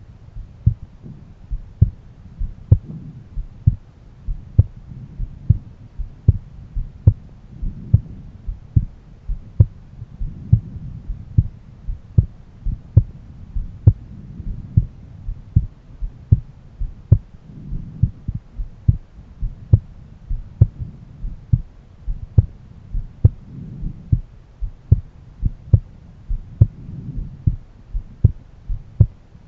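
A man's heartbeat heard through a stethoscope at one of the valve areas: a steady, regular rhythm of low thuds over a low hum.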